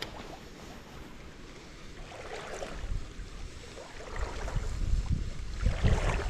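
Wind buffeting the microphone in uneven gusts, swelling about two seconds in and again near the end.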